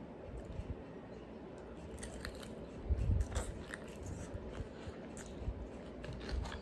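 Close-miked chewing and biting on a chicken-wing meal, with small crunches and wet mouth clicks; a louder bite about three seconds in.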